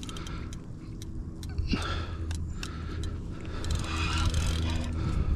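Fishing reel being cranked to pull in a hooked alligator: a steady mechanical hum with scattered clicks.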